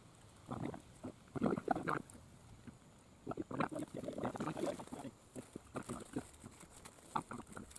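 People eating with their hands close to the microphone: irregular chewing and lip-smacking, with scattered small clicks and rustles.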